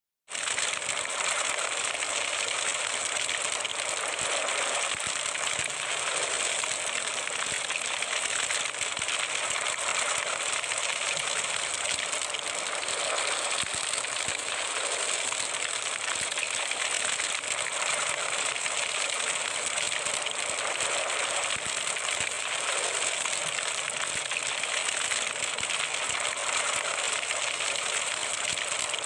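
Fire sound effect: burning flames as a steady hiss with fine crackling, starting abruptly just after the start.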